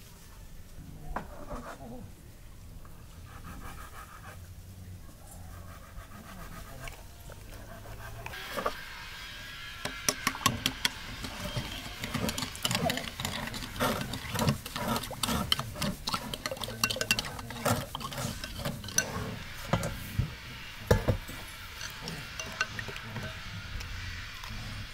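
Metal spoon stirring a spiced sauce in a ceramic bowl, with a rapid run of clinks and scrapes against the bowl's sides from about a third of the way in; the sharpest clink comes near the end.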